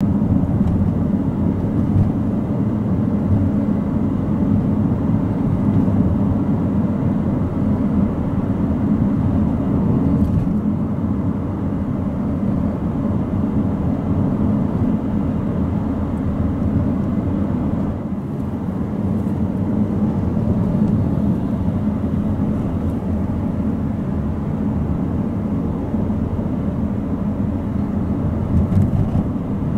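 Steady low road and engine rumble heard inside a moving car's cabin.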